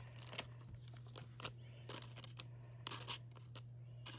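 Plastic card sleeve and trading card being handled: scattered short rustles and clicks as a card is worked into a soft sleeve, over a steady low hum.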